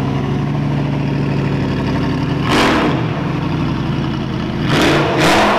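Car engine idling steadily, then revved: a short blip about two and a half seconds in and two more near the end, the pitch rising and falling back.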